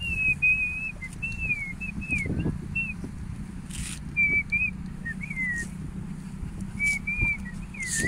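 A person whistling a tune in clear held and sliding notes, with short breaks, over a low steady rumble.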